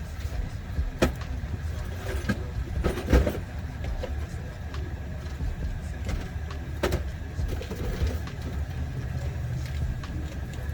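Hand tools working on a car's rear brake assembly: a few sharp metallic clicks and knocks, the loudest about three seconds in, over a steady low rumble.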